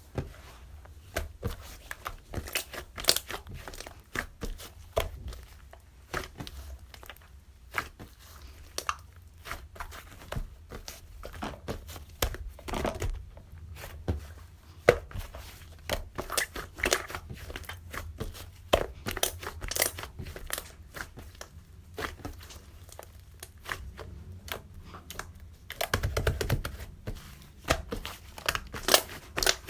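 Thick slime being squished, poked and stretched by hand: a steady stream of small sticky pops, crackles and tearing sounds, busier near the end.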